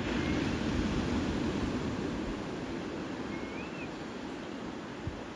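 A faint whistled weka call, a single rising-then-falling note about three and a half seconds in, over a steady rushing background noise. A soft low thud comes near the end.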